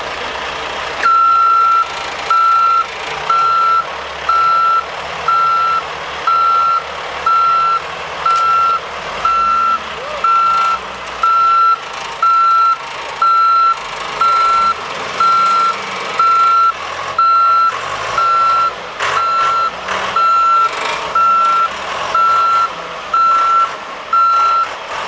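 Backup alarm of a backhoe loader beeping steadily as it reverses, one high tone a little faster than once a second, starting about a second in, over the diesel engine running.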